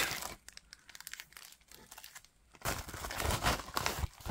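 Black plastic bubble mailer crinkling as it is handled: briefly at the start, then again for about a second and a half after a quiet stretch, with scattered light ticks in between.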